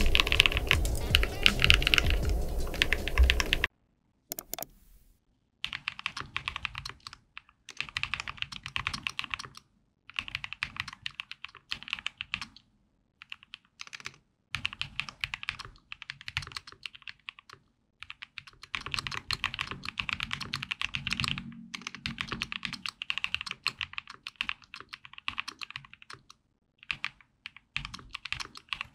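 Typing on a PG64 gasket-mount mechanical keyboard with a clear acrylic case and KTT Grapefruit linear switches: rapid, poppy keystroke clacks. The first few seconds are louder and denser. After a brief pause come bursts of typing broken by short stops.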